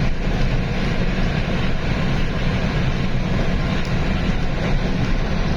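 A heavy diesel vehicle driving steadily on a highway, heard from inside the cab: a constant engine drone under loud tyre and road noise.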